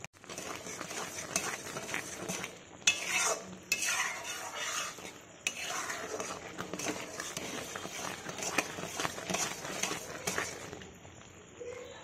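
A metal spatula scrapes and clinks irregularly around a large metal wok, stirring thick, bubbling jaggery syrup as it cooks down.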